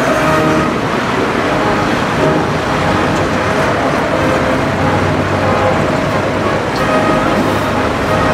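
Diesel tractor engines running steadily at a field demonstration of maize chopping, with the rumble of machinery at work.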